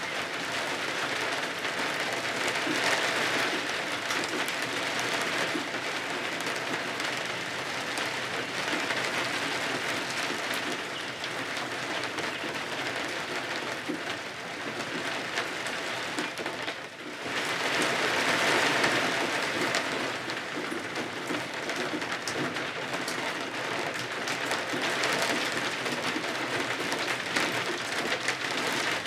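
Steady, heavy rain falling on surfaces, an even dense patter, with a brief lull about two-thirds of the way through.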